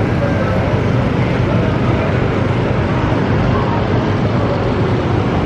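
Busy city street ambience: a steady wash of traffic noise with indistinct voices of passers-by.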